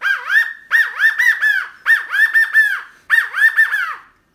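Mouth-blown quail call imitating a Gambel's quail: about four quick phrases of short whistled notes, each note rising and falling in pitch.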